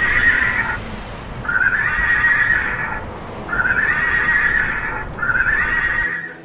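Horse whinny played through a 12-volt electronic animal-sound siren horn fitted to a car: four neighs in a row, each about a second long.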